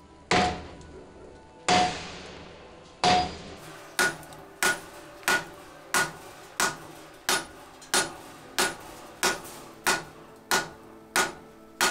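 Hand hammer striking a glowing hot damascus billet of 15N20 and 2842 steel on an anvil, each blow ringing briefly. Three heavy blows come about a second and a half apart, then a steady run of lighter blows, about three every two seconds.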